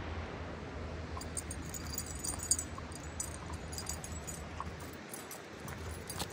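Metal tags and leash clip on a walking dog's harness jingling lightly and irregularly with its steps, over a low steady background hum.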